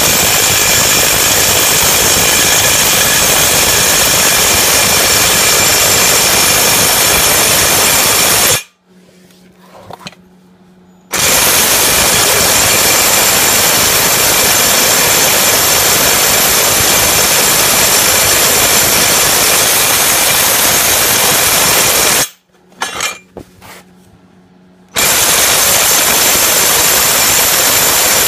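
Impact wrench running steadily as it drives the forcing screw of a small gear puller, pulling the fan mounting hub off the fan clutch bearing shaft of a Jeep 4.0L A/C bracket. It runs in three long stretches, stopping twice for a couple of seconds.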